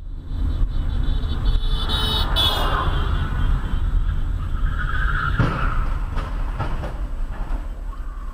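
Steady low road and engine rumble of a car driving, heard from inside the cabin through a dashcam, with a brief high-pitched tone about two seconds in and a single sharp knock about five seconds in.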